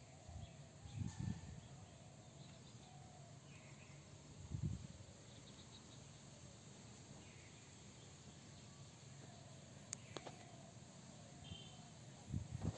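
Faint rural outdoor ambience with insects and distant bird calls, broken by a few soft low thumps and one sharp click.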